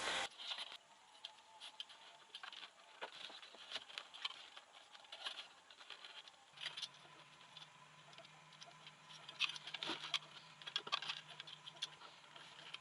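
Faint scattered clicks and rustles of hands working a wire and a metal hook. About halfway through a faint, low, steady hum begins and keeps on.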